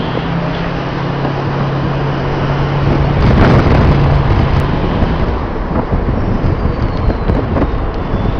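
Lifted Ford 6.0 Powerstroke turbo diesel pickup on big mud tires driving: a steady low drone swells to its loudest about three and a half seconds in, then gives way to a rougher rumble with wind on the microphone.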